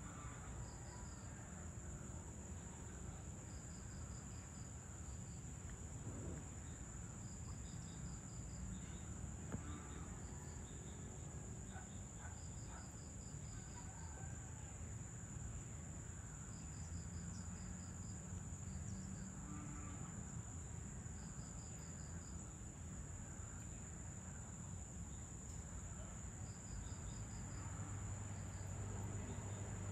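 Dusk insect chorus: a steady high-pitched drone, with short runs of five or six quick chirps repeating every few seconds. A low rumble sits underneath and grows louder near the end.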